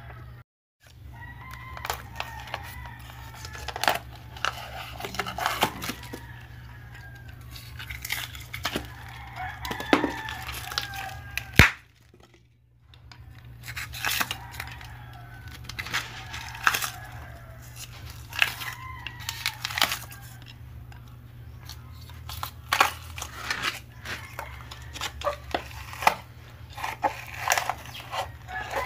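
Chickens calling and a rooster crowing several times, with scattered sharp clicks and taps from hands working material, over a steady low hum. The sound drops out briefly twice.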